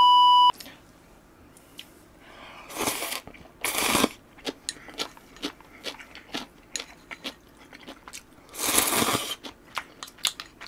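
A short electronic beep, then a person eating instant ramen noodles: three loud slurps, about three seconds in, at four seconds and near nine seconds, with chewing and small crunches between them.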